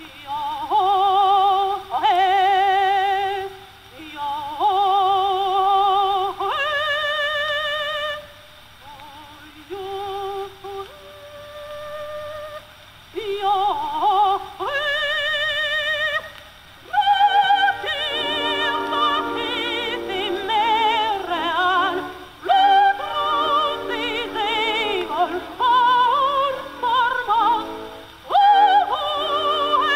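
Dramatic soprano singing an opera aria with orchestra on a 1907 acoustic recording, thin and without any high end. Long held notes with wide vibrato, separated by short breaks, and a fuller orchestral accompaniment from about halfway on.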